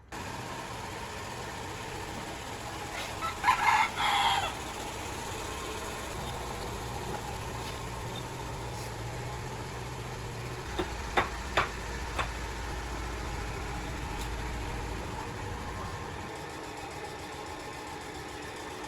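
A rooster crows once, about three seconds in, over a steady low background noise. A few short sharp taps follow about eleven seconds in.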